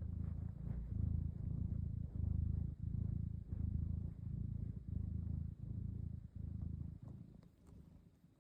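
Domestic cat breathing with a soft purr, each breath in and out heard as a low rumbling pulse about every 0.7 seconds. The purring fades away near the end.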